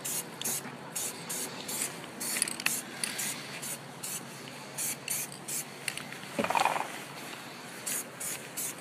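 Aerosol can of satin black spray paint hissing in a quick series of short bursts as a coat is laid on a bike stem. About two-thirds of the way through there is one brief, duller, louder noise.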